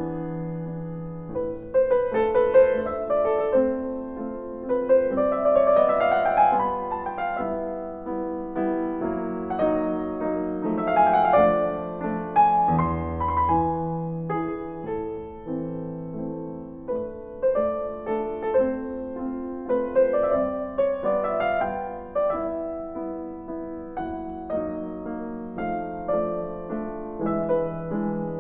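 Solo Steinway grand piano being played, with a melody over sustained chords and several quick upward runs.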